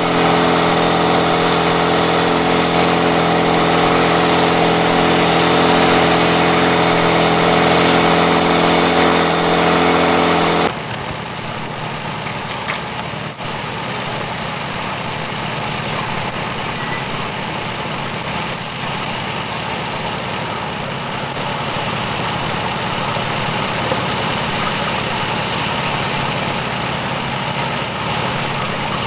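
Fire-service pump engines running steadily: an even, deep engine hum that changes abruptly about ten seconds in to a quieter, rougher and noisier engine sound, a portable fire pump driving water through hoses.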